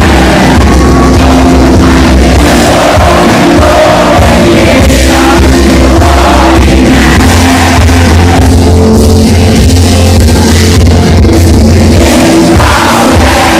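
A live rock band playing loud: electric guitars, drums and a singer, at a steady high level throughout.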